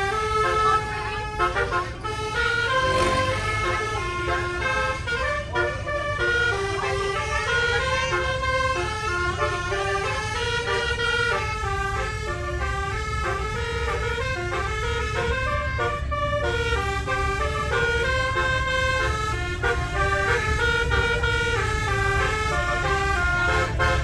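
Tour bus telolet horn playing a melody of sustained, stepping notes that change about twice a second, over a steady low rumble.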